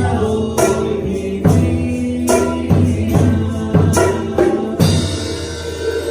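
A band playing a praise song (alabanza) with tambourine strikes over a steady beat. The percussion drops out about five seconds in, while the instruments carry on.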